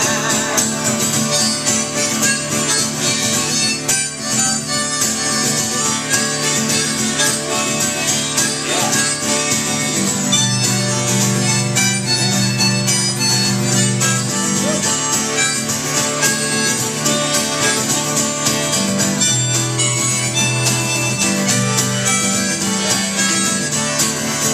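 Live band playing an instrumental break of a country song between verses: a harmonica leads over strummed guitar accompaniment.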